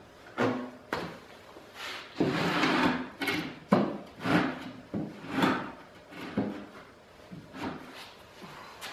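2x4 lumber knocking and scraping against the wooden frame as the pieces are fitted together: a string of irregular knocks, with a longer scrape about two to three seconds in.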